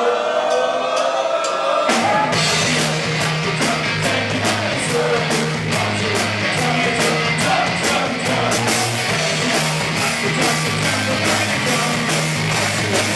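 Punk rock band playing: held notes rise in pitch for about two seconds, then drums, bass and electric guitar crash in together at a fast tempo with steady cymbal hits.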